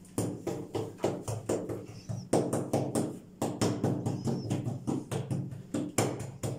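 Hands patting and pressing a soft ball of yeast dough flat on a silicone mat over a tabletop, in a quick uneven run of soft slaps, several a second, as the dough is spread into a round flatbread.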